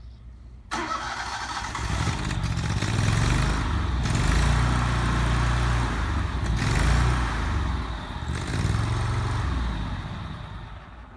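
John Deere Z915B zero-turn mower engine starting suddenly about a second in, then running, getting louder and quieter a few times and dying down near the end.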